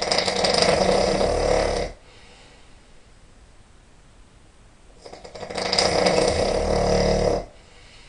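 A man snoring loudly: two long snores about five seconds apart, each lasting about two seconds, with quiet breathing between them.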